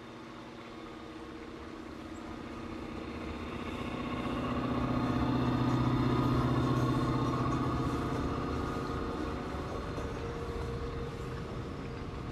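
Diesel locomotive engines running steadily as a freight train passes, swelling to a peak about six seconds in as the locomotives go by, then easing off as the freight cars follow.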